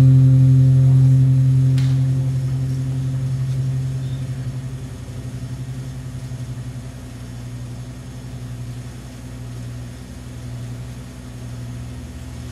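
Amplified acoustic guitar's last low chord ringing out and slowly fading over about five seconds, leaving a steady low hum. A faint click about two seconds in.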